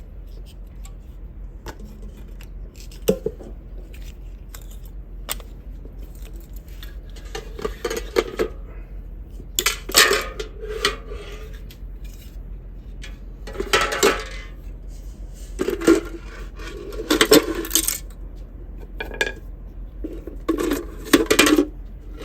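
Small metal parts from a dismantled pocket radio clinking and rattling as they are handled and dropped. There are a few separate clicks first, then several bursts of clatter, each about a second long.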